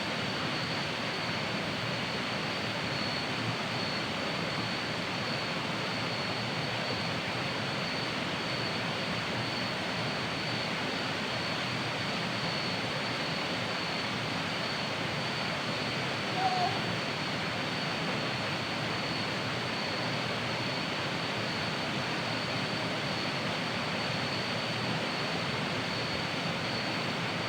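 Waterfall rushing steadily, with a thin, constant high-pitched tone above the water noise.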